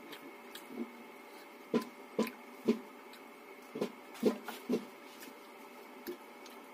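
Close-up eating sounds of a person eating rice and fish curry by hand: about seven short, sharp wet smacks and clicks at irregular intervals, mostly in the middle of the stretch, over a faint steady hum.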